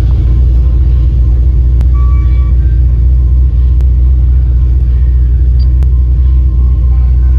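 A car's loud, steady low rumble.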